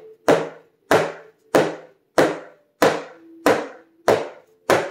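A round metal cake pan full of batter being lifted and knocked down on a wooden counter over and over, about eight even knocks at a little under two a second, to drive the air bubbles out of the batter before baking.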